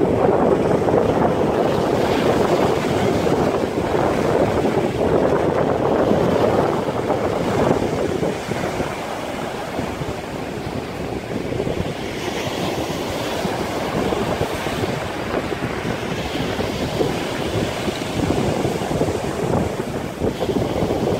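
Wind buffeting the microphone over the rush of water and waves, a little quieter after about eight seconds.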